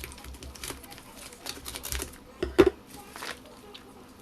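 Hands opening and handling a package: a run of quick clicks and rustles, with one louder knock about two and a half seconds in.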